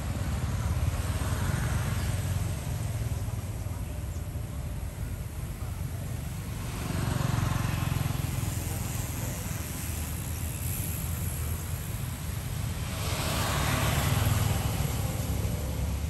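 Road traffic: a steady low rumble of passing vehicles that swells as they go by, about a second in, around seven seconds in, and most strongly near the end.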